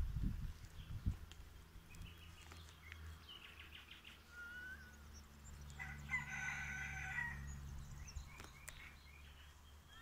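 A rooster crowing once, about six seconds in, a single call of about a second and a half. Small birds chirp around it.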